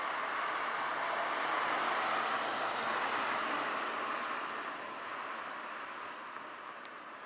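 A vehicle passing along the street: a smooth rush of traffic noise that swells to its loudest about two seconds in, then fades away.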